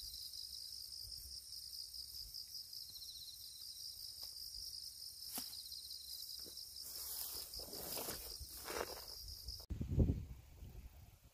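Insects chirring in a steady, high-pitched pulsing trill, with grass rustling and a few light clicks from handling in the bankside vegetation about two thirds of the way in. Near the end the insects stop abruptly and a brief loud low rumble follows.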